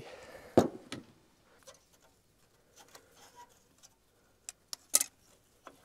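Scattered sharp clicks and knocks from tools and parts being handled: a loud one just over half a second in, then a quick run of three about four and a half to five seconds in.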